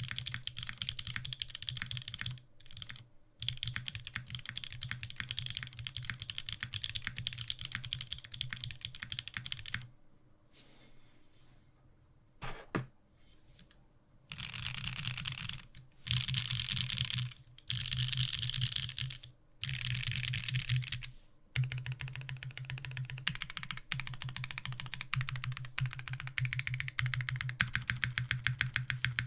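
Typing on a WilbaTech Salvation leaf-spring-mounted 60% custom mechanical keyboard with lubed BCP (Black Cherry Pie) linear switches and GMK keycaps: a dense, fast clatter of keystrokes. It pauses for a few seconds with a single click, then comes back in several short bursts. Near the end it settles into a steady run of single keys pressed one at a time.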